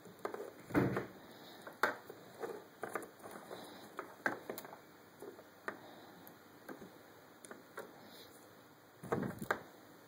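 Irregular light clicks and knocks of hands handling batteries and wires on a desk, with two louder bumps, a little under a second in and near the end.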